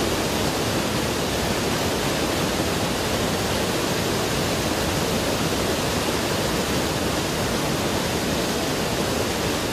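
A small waterfall pouring over a stone wall into a pool, a steady even rush of falling and splashing water.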